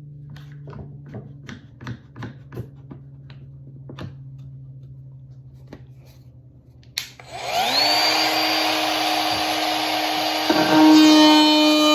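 Light knocks and clicks of wooden pieces being handled. About seven seconds in, an electric power tool switches on, its motor whining up in pitch and then running at a steady high speed.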